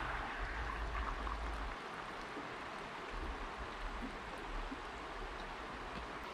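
Steady rush of flowing river water, with a low rumble that is strongest in the first second or two.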